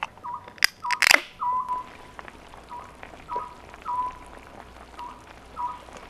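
Aluminium beer can opened by its pull tab: a small click, then the sharp crack and hiss of the seal breaking about a second in. Behind it, a short, falling, whistle-like call repeats steadily a little under twice a second.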